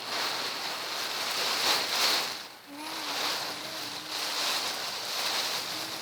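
Heavy typhoon rain pounding on the roof and body of a camper van, heard from inside as a dense, steady hiss.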